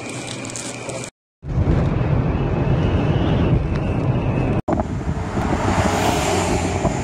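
Sandstorm wind noise in three short cuts. First a steady hiss with a faint high tone, then a brief silence. Next comes loud, low wind and road noise inside a car driving through the storm, and after an abrupt cut, wind blowing on the microphone outdoors.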